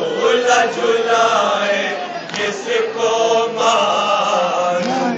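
A man chanting a melodic recitation into a handheld microphone, in long held, wavering notes broken into phrases.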